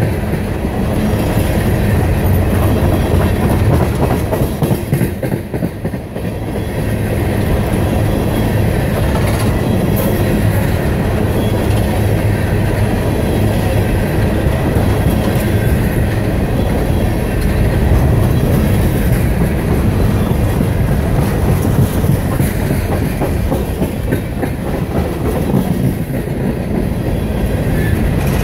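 Empty coal hopper cars of a freight train rolling past, with a steady rumble and the wheels clicking over the rail joints.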